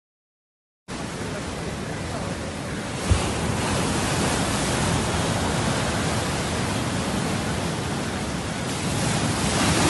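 Heavy sea surf: waves breaking and foam washing up the shore in a steady rush that starts about a second in, with wind buffeting the microphone. A short thump about three seconds in.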